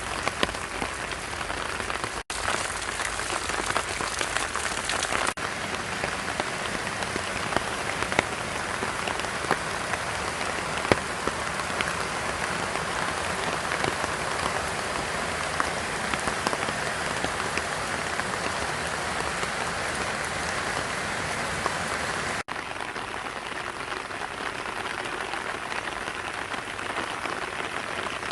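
Steady spring rain falling, with a dense patter of individual drops striking surfaces. The sound cuts out for an instant twice, about two seconds in and again near the end.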